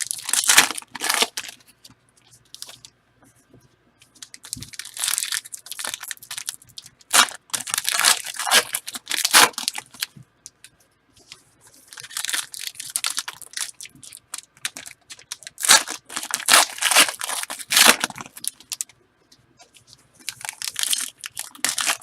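Foil wrappers of football trading card packs being torn open and crinkled, in half a dozen separate bursts of ripping and rustling.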